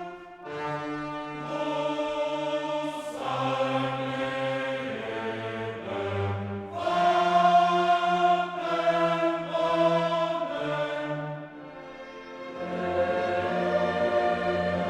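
Background music: sustained choral and orchestral chords that change every second or so, dipping briefly about twelve seconds in.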